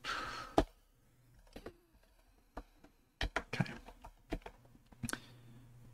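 Scattered keystrokes on a computer keyboard: a few separate clicks with a short run of typing in the middle.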